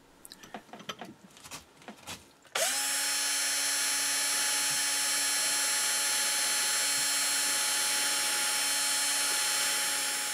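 Tool-post drilling spindle on a lathe, spot-drilling the start of a hole in a brass flywheel. After a few light clicks, its motor starts about two and a half seconds in, spins up quickly and runs with a steady whine. The whine begins to fade near the end.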